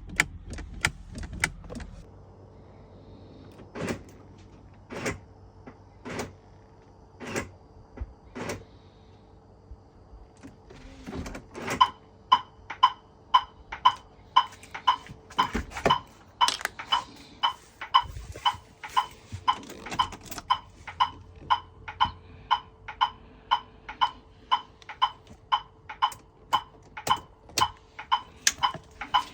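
Clicking from the gear selector surround of a 1995 Jaguar XJR as the brake pedal is pressed, the shift-interlock solenoid in the selector working. A few single clicks at first, then from about twelve seconds in a steady run of sharp clicks, about two a second, over a faint steady hum. This is one of the symptoms shown while the car would not start with its old security module.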